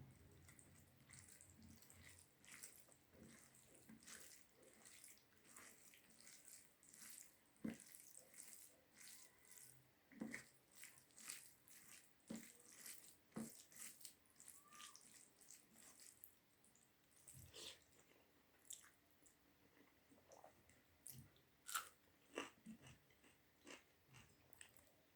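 Faint close-up eating sounds: irregular soft clicks, smacks and chewing of big mouthfuls of rice with dal, curry and pickle, with a few sharper clicks now and then.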